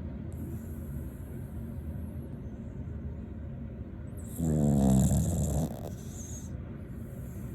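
Rat terrier snoring in its sleep: one loud, drawn-out snore a little over a second long, about four and a half seconds in, over a steady low rumble.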